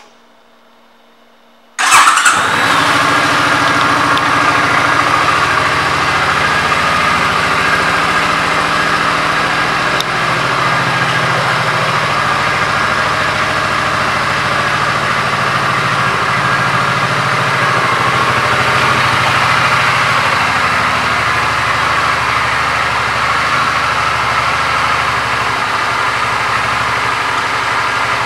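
2008 Suzuki Boulevard C50T's 805 cc V-twin engine starting suddenly about two seconds in, then idling steadily.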